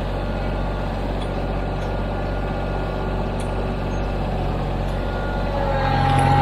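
Tractor diesel engine running steadily, growing louder near the end as it picks up.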